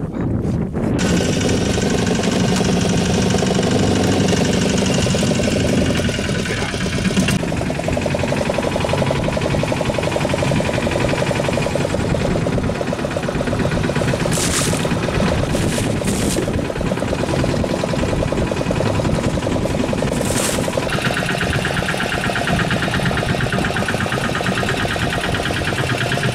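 Fishing boat's engine running steadily, with a fast, even knocking beat.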